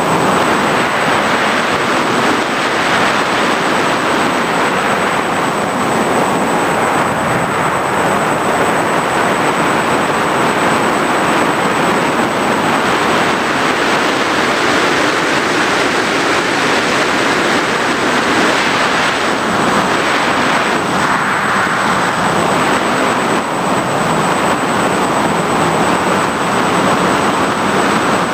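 FPV drone in flight: a steady, loud rush of propeller and wind noise that swells and eases a little without stopping, with a thin high whine running steadily through it.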